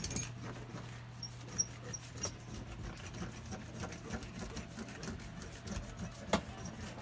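Scattered light taps, clicks and handling noises from hands working in a stripped car cabin, over a steady low hum. There is a sharper click right at the start and another about six seconds in.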